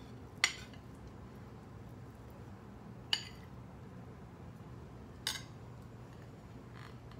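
A metal spoon clinking lightly against ceramic crockery three times, a couple of seconds apart, as fried eggs are slid onto a plate.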